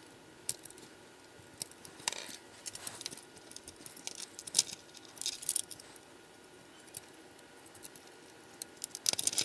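Scattered light clicks and scrapes of a small screwdriver working tiny screws out of the frame of a brass HO scale model locomotive.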